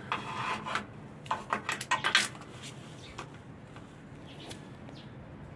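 Irregular metallic clinks and taps of a socket wrench and extension being worked on bolts, a quick cluster in the first two seconds or so, then a few fainter ones.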